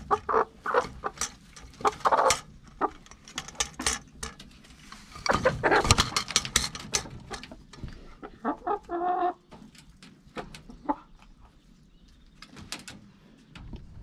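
Chickens clucking in short, irregular calls, mixed with a few sharp knocks, quieter over the last few seconds.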